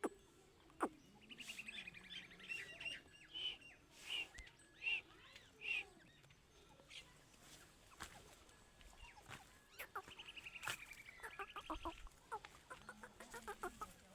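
Game birds calling: two rapid rattling trills, one about a second in and one about ten seconds in, with short clucking notes between them and a run of quick ticking notes near the end. A few sharp clicks are mixed in.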